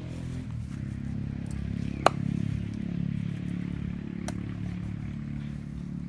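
Cleaver cutting eel pieces on a wooden chopping board: a sharp knock about two seconds in and a fainter one past four seconds, with light clattering. A steady low hum runs underneath.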